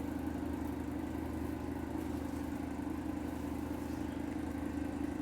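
A steady mechanical hum with a low drone that holds unchanged.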